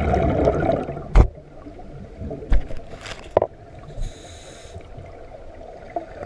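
Scuba diver breathing on a regulator underwater: exhaled bubbles rush and gurgle for about the first second, then come a sharp knock and a few scattered clicks, and a brief hiss about four seconds in.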